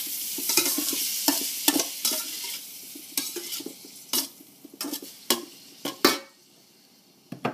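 Crayfish tails frying in butter and oil in a stainless steel wok, the sizzle dying away after the heat is turned off. A metal spatula scrapes and clacks against the wok about ten times as the pieces are tossed.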